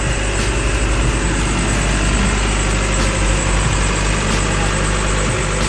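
Yacht's port generator running steadily just after starting, with a loud, even low hum. It has been started to test a newly fitted cooling-water impeller.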